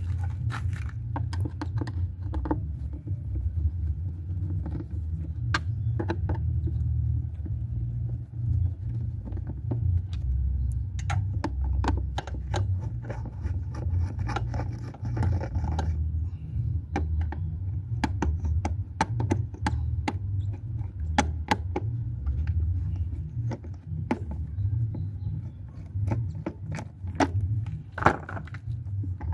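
Scattered clicks, scrapes and knocks of the plastic air filter cover being unfastened and worked off a Honda Dream 110's airbox, over a steady low rumble.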